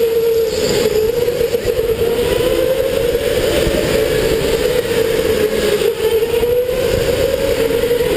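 Electric go-kart's motor whining, its pitch rising and falling slowly as the kart speeds up and slows, over a steady low rumble.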